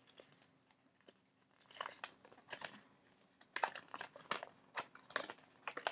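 Folded paper instruction manual being handled, crinkling and rustling in short crackles that start about two seconds in and grow busier in the second half.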